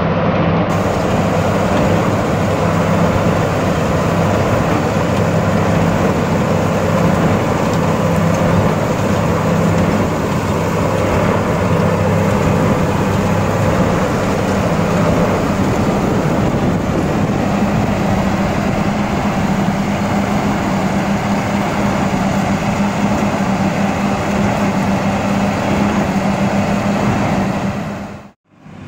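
A John Deere tractor's engine running steadily under load while it pulls and drives a Krone Big Pack square baler through a field, with a low even hum. The sound cuts out for a moment near the end.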